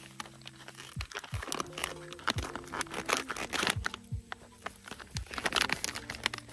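Foil freeze-dried meal pouch crinkling as its zip seal is pressed shut by hand, over background music with a steady drum beat.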